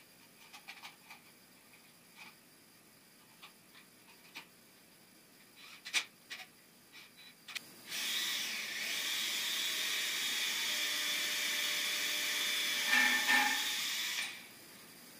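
Faint clicks and taps of small screws handled on a board tabletop, then about eight seconds in a cordless drill runs steadily for about six seconds, driving a screw up into the wooden top from underneath, briefly louder near the end before it stops.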